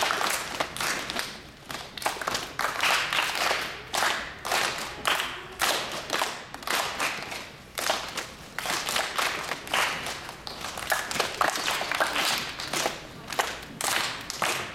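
A group of children clapping their hands in repeated bursts, many sharp claps overlapping.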